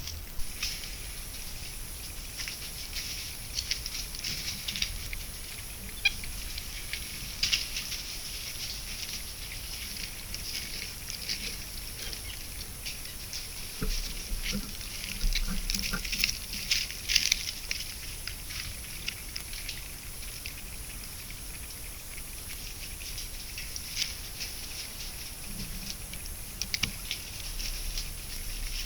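Irregular rustling and scratching in leaf litter from an animal moving and foraging close to a trail camera, busiest a little past the middle.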